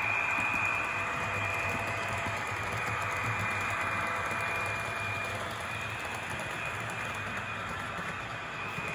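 HO scale Walthers Trainline GP15-1 diesel model locomotive, battery-powered (dead rail), running along the track pulling freight cars, its motor giving a steady high whine.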